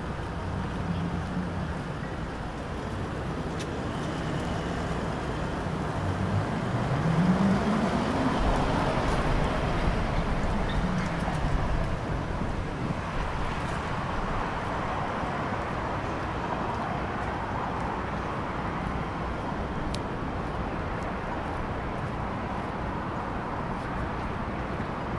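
City street traffic: steady road noise, with one vehicle's engine rising in pitch and growing louder as it accelerates past about seven seconds in.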